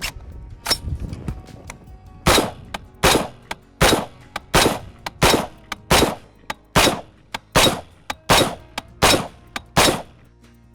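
Brownells BRN-10 Retro .308, a semi-automatic AR-10 replica rifle, fired about eleven times at a steady pace, roughly one shot every three-quarters of a second, each report loud and sharp with a short echo.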